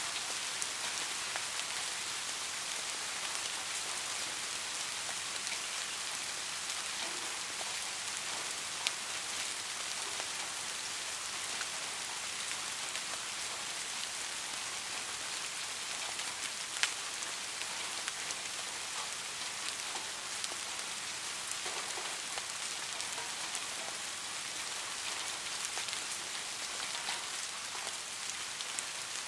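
Steady rainfall: an even, dense hiss of falling rain with scattered individual drop ticks. Two sharper drops stand out, about 9 and 17 seconds in.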